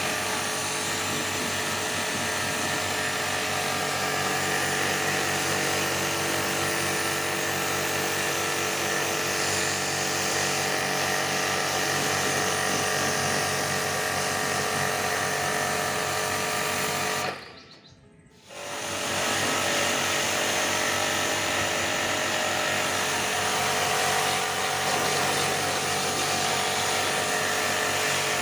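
Electric motor running steadily with a whine. It cuts out for about a second around two-thirds of the way through, then picks up again.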